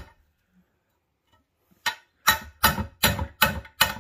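Hammer striking a socket that drives a new water pump bearing into an ATV engine cover: the seating of a press-fit bearing. One tap near the middle, then steady sharp metallic taps about three a second.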